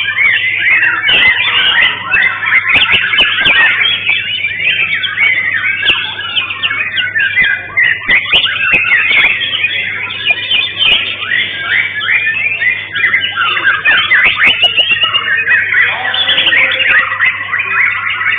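White-rumped shamas (murai batu) singing, a dense unbroken run of quick whistled and chattering phrases from several birds overlapping, over a steady low hum.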